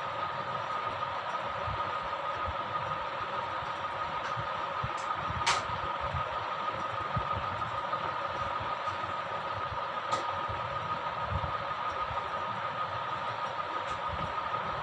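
Steady mechanical background hum and hiss with a constant two-tone whine, broken by a sharp click about five and a half seconds in and a smaller one about ten seconds in.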